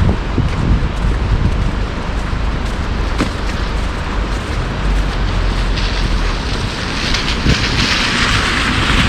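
City street noise: a steady low rumble of traffic and wind on the microphone, with a hiss that swells from about six seconds in, as of a vehicle going by.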